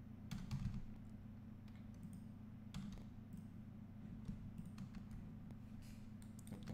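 Faint, scattered clicks of a computer keyboard and mouse, a few isolated strokes, over a steady low hum.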